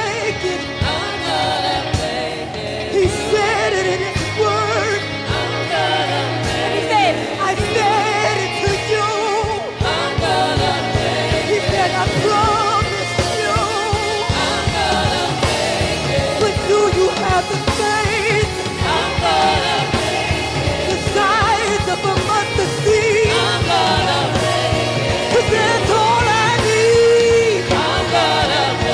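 Gospel song with a lead singer and backing voices over a band with a steady beat.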